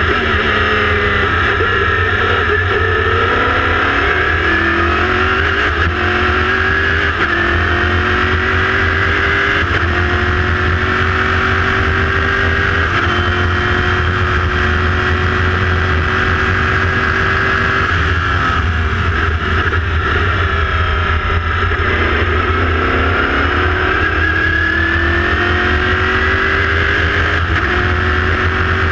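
Chevrolet V8 of an LMPC prototype race car heard from the cockpit at full throttle, rising in pitch through several quick upshifts. Past the middle it falls away as the car brakes and downshifts, then climbs through the gears again, over a steady low rumble.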